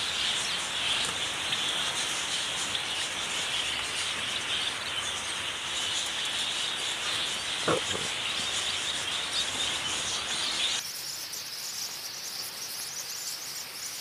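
Many small finches chirping and twittering in an aviary of wire cages, with a single knock of a wire cage being handled about eight seconds in. The chirping background changes abruptly a little before the end.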